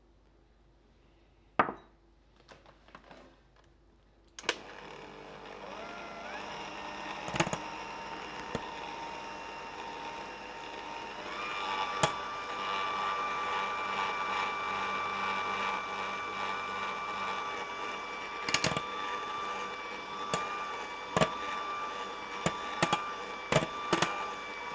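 Electric hand mixer starts about four seconds in, after a couple of handling knocks, and whips egg yolks into a stiff meringue in a glass bowl. Its motor whine rises in pitch as it speeds up, steps up again about halfway, then runs steady. The beaters click against the glass bowl now and then.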